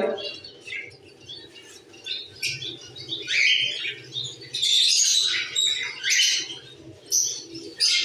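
Caged aviary birds, among them parakeets, chirping and calling in many short, overlapping calls.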